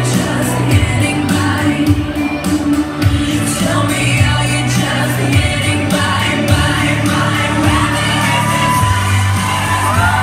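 Amplified pop song with a singing voice, playing loudly for a stage dance routine. Near the end the audience cheers, with long gliding whoops over the music.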